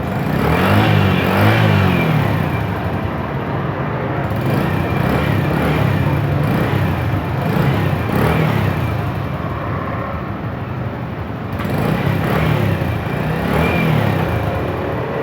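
A Bajaj CT100's single-cylinder motorcycle engine running after an overhaul, revved up and down several times.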